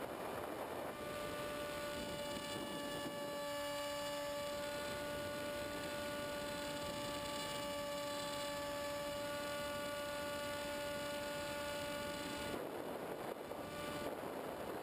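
Electric motor and propeller of a Multiplex EasyStar model plane, recorded on board: a steady whine at constant throttle that comes in about a second in and cuts off about two seconds before the end, briefly returning near the end. While the motor is off, wind rushes over the airframe.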